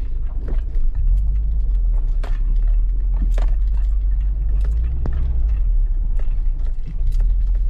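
Steady low rumble inside a Subaru WRX hatchback's cabin as it rolls slowly into an unpaved parking lot, with scattered light clicks and knocks over it.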